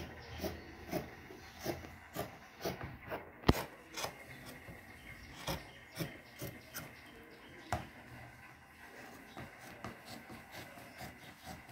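Scissors cutting through white cloth: a run of crisp snips, about two a second, with one sharper click about three and a half seconds in. The snips then grow sparser and stop after about eight seconds, leaving faint rubbing of the cloth.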